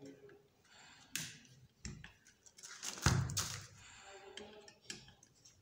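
Screwdriver turning a screw in the metal end bracket of a mixer-grinder's universal motor, with small metal clicks and scrapes and a louder knock about three seconds in.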